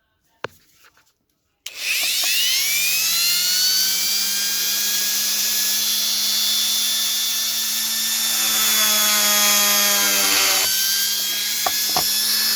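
Dremel-type rotary mini engraver spinning up about two seconds in with a rising whine, then running steadily, its tone changing for a couple of seconds near the end. It is deepening the worn-down gaps between the teeth of a pruning shear's ratchet mechanism.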